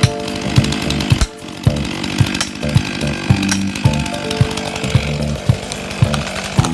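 Two old two-stroke chainsaws, a Stihl 090AV and a Dolmar, running at full throttle as they cut through a massive tree trunk. Background music with a steady beat of about two thumps a second plays over them.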